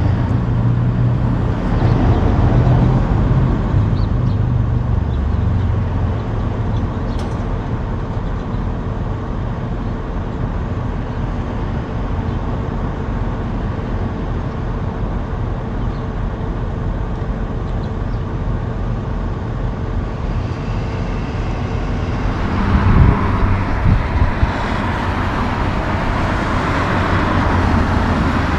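Unloaded logging truck's diesel engine running at low speed. About two-thirds of the way through, it gives way to highway traffic noise with a few thumps.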